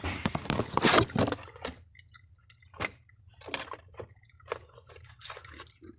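Handling noise from tools and their packaging: a loud burst of rustling and crinkling over the first two seconds, then a sharp click and a few shorter rustles.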